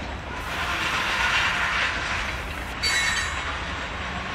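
Freight train tank cars rolling past on the rails, with a steady rumble and hiss of wheels on track. About three seconds in, a brief high-pitched wheel squeal joins in.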